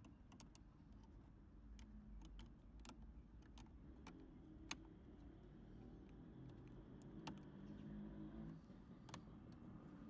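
Faint, irregular light clicks and taps of metal parts as the casing halves of a spark gas igniter are handled and fitted together, one sharper click about halfway through, over a low background rumble.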